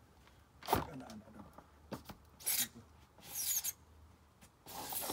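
Skirting being fitted at the base of the house, scraping and rubbing in four short rasping strokes.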